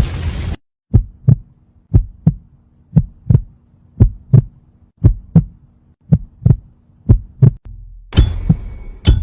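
Heartbeat sound: lub-dub double thumps about once a second over a faint steady hum, after a loud rushing noise that cuts off about half a second in. Near the end it switches to a noisier heartbeat with high whistling tones over it.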